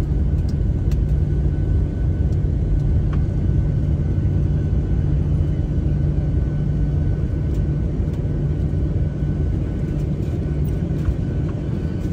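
Cabin noise of a Boeing 737-700 moving along the runway during landing. It is a steady, loud, low noise from the engines and the rolling airframe that eases a little toward the end, with a few faint clicks.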